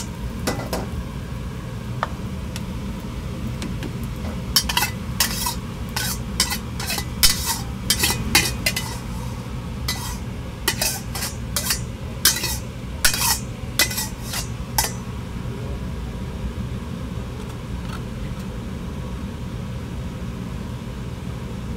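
Metal spatula clanging and scraping against a wok while nasi goreng (fried rice) is stir-fried, over a steady low rumble. The strikes come in a quick irregular run that stops about fifteen seconds in.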